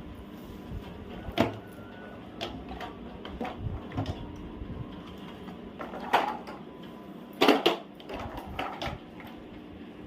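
Toys knocked and set down, a series of separate sharp clacks, the loudest a quick double knock near the end.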